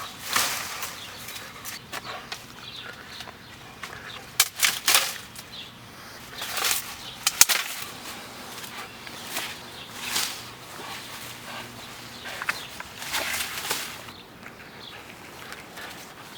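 A dog tearing at a tree or shrub: leafy branches rustling and shaking in irregular bursts, with a few sharp snaps of twigs about four to five seconds in and again near the middle.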